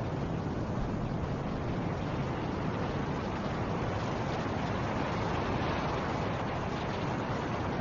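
Snowstorm wind blowing steadily, a continuous rushing noise that swells a little past the middle.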